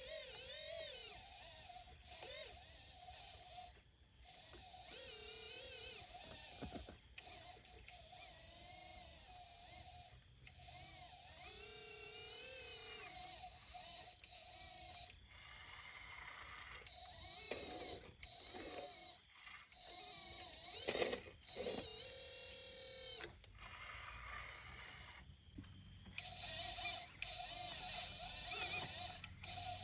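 High-pitched electric whine of a 1/14-scale hydraulic RC excavator's pump and motors: steady tones with wavering pitches over them as the machine works. The whine cuts out briefly several times.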